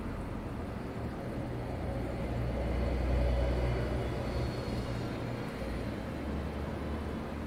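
Steady low hum with an even hiss from aquarium equipment, swelling a little about three seconds in.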